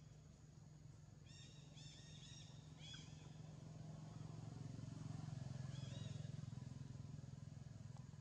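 Faint low hum of a distant motor vehicle, swelling to its loudest about five seconds in and then easing off. Short, high chirping calls come in a quick series between about one and three seconds in, and twice more near six seconds.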